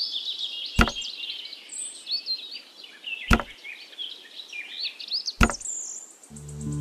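Small birds chirping and twittering, broken by three sharp knocks about a second, three seconds and five and a half seconds in. Music begins just before the end.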